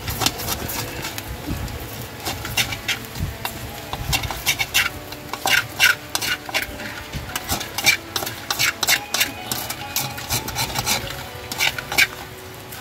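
A metal spoon scraping and clinking in a metal wok as small gourami roasting on a bed of rock salt are stirred and turned. The scrapes and clicks come irregularly, with several louder ones around the middle and near the end.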